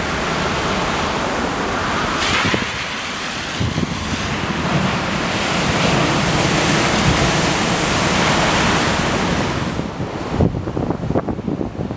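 Heavy storm surf whipped up by an approaching typhoon: big waves breaking in a loud, continuous roar, with strong wind. About ten seconds in the roar falls away and wind gusts buffet the microphone in choppy thumps.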